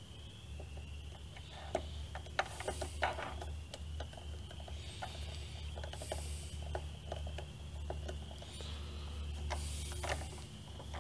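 Hand screwdriver with a T15 Torx bit turning a screw into the sheet-metal panel of a Hypertherm Powermax 65 plasma cutter: a run of small, irregular clicks and ticks from the bit and screw.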